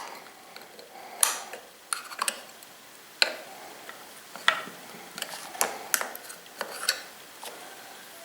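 Irregular small metallic clicks and clinks of hand tools working on a SOLO 642 chainsaw's clutch as its thin retaining ring is taken off the shaft.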